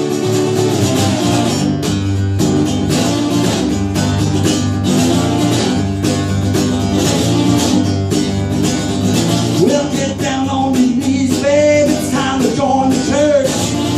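Acoustic guitar strummed in a steady rhythm, played live, with a man's voice starting to sing over it about ten seconds in.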